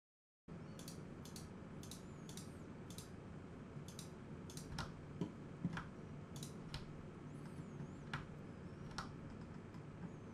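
Faint, irregular clicks of a computer mouse and keyboard, roughly one every second, over a steady low background hum.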